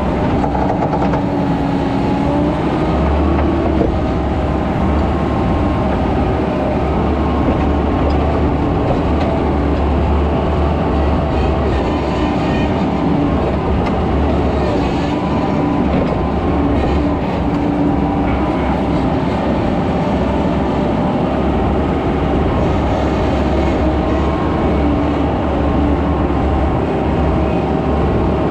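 Skid steer running steadily as it moves and spreads dirt: a loud, even engine drone with a low rumble underneath.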